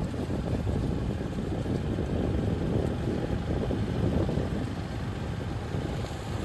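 Wind buffeting the microphone: a loud, steady low rumble that cuts off abruptly at the very end.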